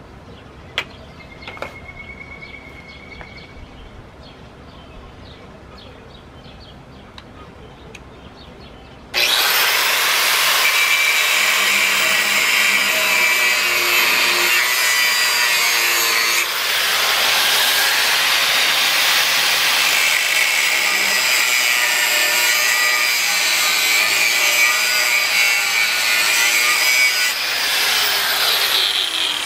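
Corded angle grinder cutting through the rusted steel exhaust pipe of a Ford flathead V8 engine. It starts about nine seconds in with a loud, steady high-pitched grinding that runs on, dipping briefly partway through; before that there are only a few faint handling clicks.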